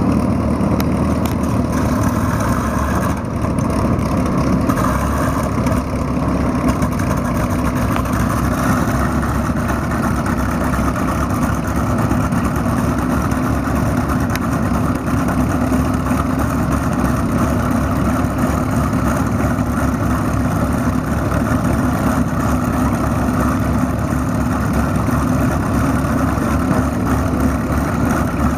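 Engines of two North American P-51 Mustang fighters idling together on the ground, their V-12 engines giving a steady deep rumble that holds even throughout.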